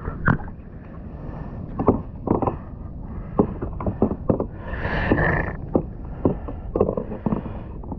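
Irregular knocks and bumps on a kayak over a steady low rumble, with a brief hiss about five seconds in.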